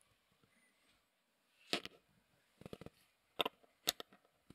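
A handful of light, sharp clicks and taps of small metal parts, the first about two seconds in: a watch movement being handled and clamped into a metal movement holder.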